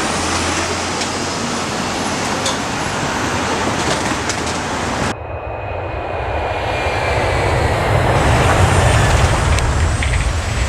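Road noise from a moving vehicle, a steady rush without clear tones. About five seconds in it cuts abruptly to a deeper rumble that grows louder.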